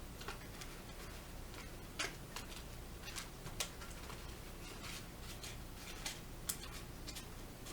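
Scattered light clicks and taps of small candy pieces and a plastic tray being handled while a table is tidied up, at irregular intervals over a faint low hum.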